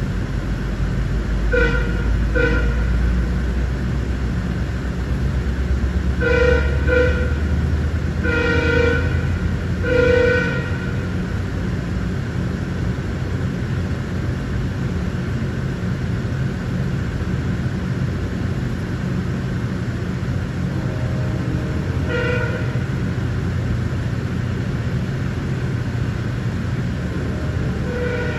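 Horn of a Sounder MP40PH-3C diesel locomotive sounding a run of short blasts and one longer blast in the first ten seconds, with two more brief notes later, over the steady low rumble of the train passing through a grade crossing.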